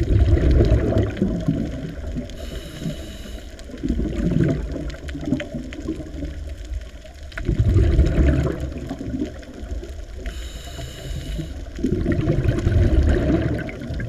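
Muffled underwater sound from a camera in the water: low rushing water surges that swell and fade every few seconds, with a brief higher hiss twice.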